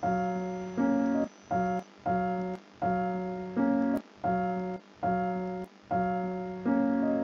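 Background music: a simple tune of single held notes on a keyboard, about ten notes with short gaps between them, a few of them stepping up in pitch.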